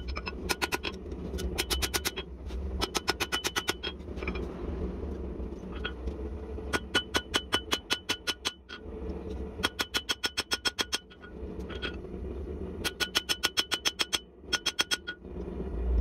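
Hand hammer striking red-hot leaf spring steel on an anvil, forging a karambit blade: bursts of quick blows, about seven a second, each with a bright metallic ring, broken by short pauses. A steady low drone runs underneath.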